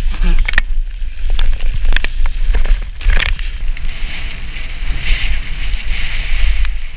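Mountain bike riding down a wet, muddy trail: wind buffets the camera microphone with a heavy low rumble, while the bike and its tyres rattle and click over the ground. A steady hiss of tyres through wet mud joins about four seconds in.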